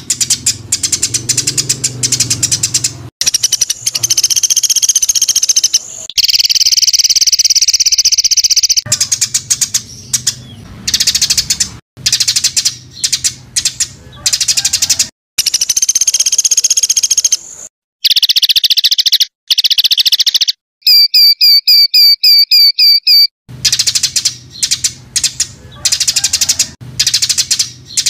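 An edited medley of songbird calls and songs, cut together in quick succession: rapid high chattering phrases, a long fast trill about a third of the way in, and a little past two-thirds of the way through a run of about eight identical notes repeated about three times a second.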